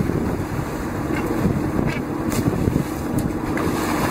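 Wind blowing on the microphone over sea water churning and splashing beside a boat, with a few short splashes from a hooked fish thrashing at the surface.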